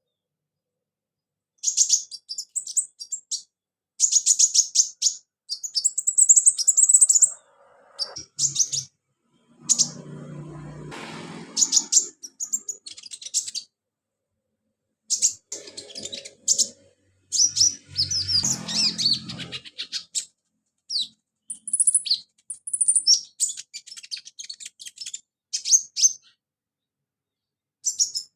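Olive-backed sunbird singing in bursts of quick, high chirps with short silent gaps, a song carrying mimicked house sparrow, cricket and chick calls. Twice, near the middle and later on, a low rustling or knocking sound runs under the song.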